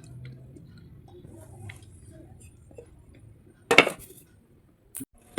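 Slate pencils knocking and clinking close to the microphone, with one loud sharp crack about three and a half seconds in and two shorter clicks near the end.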